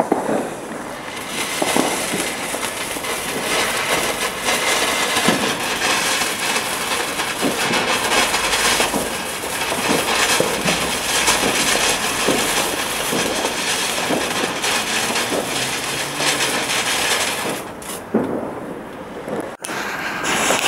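"Festival" ground fountain firework spraying sparks with a steady hiss and many small crackles. It burns for about seventeen seconds, then dies away near the end.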